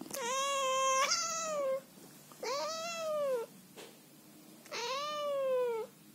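Scottish Fold cat meowing three times, long drawn-out meows that rise and then fall in pitch, the first jumping higher about a second in. These are annoyed, complaining meows from a cat that does not want to be touched or cuddled.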